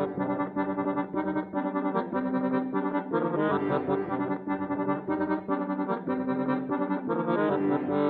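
Syrnai, the Kazakh accordion, playing a quick melody over held chords, its notes changing several times a second.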